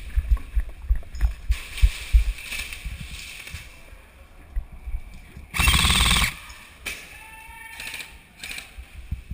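Airsoft electric rifle firing a short automatic burst a little past halfway, followed by a couple of single sharp shots. Low thumps fill the first two seconds.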